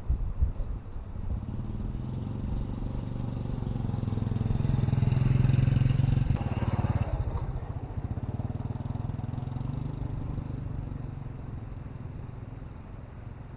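A motor vehicle engine rumbling, growing louder to a peak about six seconds in and then fading away.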